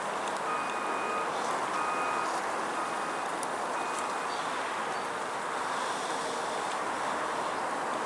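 Steady hum of honeybees around an open hive during a frame inspection, with a faint short beep repeating about once a second in the first half.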